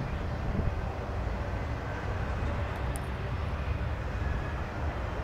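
CN freight train's container cars rolling past, a steady low rumble of wheels on rail.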